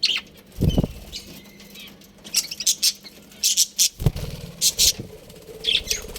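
A colony of budgerigars chirping in short, high bursts, with two low thumps, one about half a second in and one at about four seconds.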